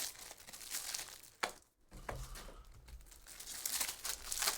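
Trading card packs and cards being handled: foil wrappers crinkling and rustling in irregular bursts, with a sharp tick about a second and a half in.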